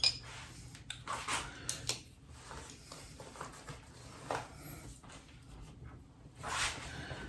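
Light plastic clicks and handling noises from a wall-mounted motion-sensor light switch as its control cover is off and its settings are adjusted, with a louder short scrape about six and a half seconds in.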